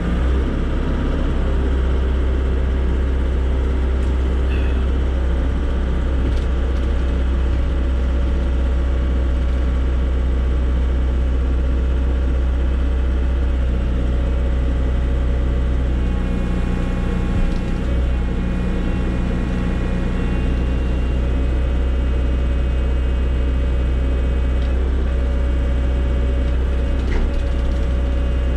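Volvo BL70 backhoe's diesel engine running steadily with a deep drone. A higher whine joins in about halfway through.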